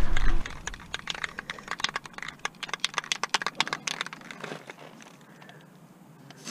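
Rapid crinkling and crackling of masking material being handled and taped up for painting, dying away after about four and a half seconds; a brief low rumble sounds at the very start.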